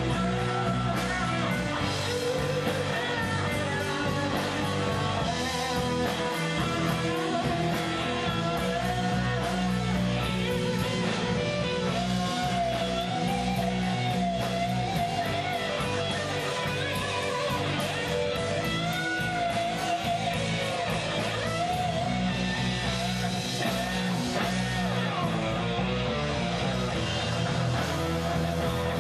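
Heavy metal band playing live: electric guitars, bass guitar and drums, with a wavering lead line over the chords around the middle.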